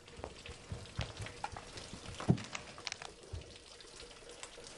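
Dishes and a serving tray being gathered up from a low table: scattered light clinks and knocks, one louder clatter about two seconds in, with shuffling movement.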